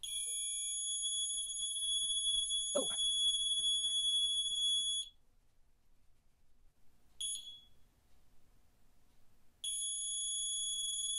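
Ignition timing synchroniser beeping a steady high-pitched tone for about five seconds, cutting out, chirping briefly, then sounding again near the end; the beep marks the magneto points opening. A single knock about three seconds in.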